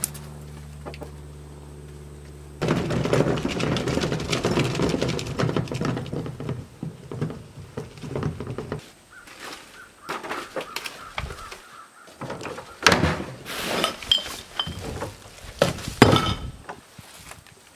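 Plastic wheeled trash bin rolling over grass and a brick path, a rattling rumble lasting about six seconds after a steady low hum. It is followed by a string of sharp thunks and knocks as the bin is set down and its lid and bags are handled, the loudest near the end.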